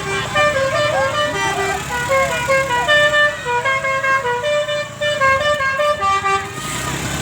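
Bus basuri telolet horn playing a quick melody of short notes that step up and down in pitch, stopping about six and a half seconds in.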